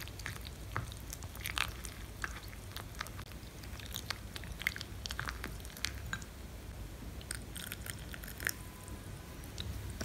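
Silicone spoon stirring henna powder into a wet paste in a cut-glass bowl as hibiscus infusion is added: irregular soft squelches with short clicks of the spoon against the glass.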